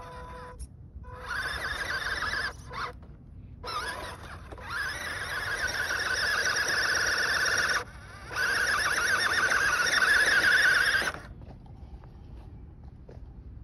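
Scale Jeep Cherokee RC crawler's electric motor and geared drivetrain whining under throttle as it crawls over loose dirt, in four bursts of one to three seconds with short pauses between, the last and loudest ending about two seconds before the end.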